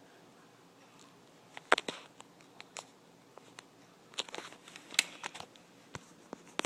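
Handling noise: a scattered run of small clicks and rustles against a quiet background, sharpest a little under two seconds in, with a cluster of them around the fifth second.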